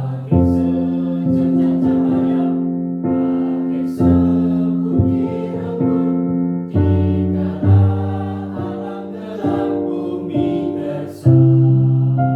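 Primary-school children's choir singing together, accompanied by a keyboard playing chords.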